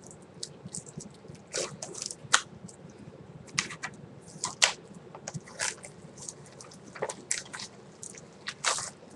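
Plastic Blu-ray case being handled and opened: irregular crackles, rustles and sharp clicks, loudest about two seconds in and again past four seconds.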